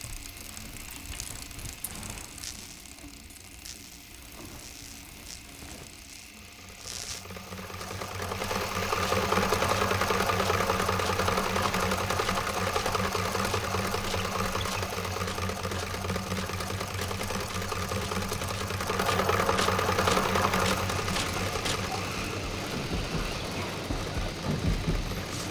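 A treadle sewing machine being worked, its belt-driven wheel spinning a bicycle bottle dynamo. It sets in about seven seconds in as a steady mechanical whirr and rattle with a constant hum, and grows louder again about two-thirds of the way through.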